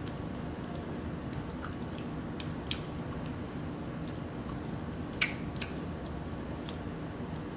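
Eating sounds: a fork clicking against a plate and soft chewing, a few separate sharp clicks with the loudest about five seconds in, over a steady low background hum.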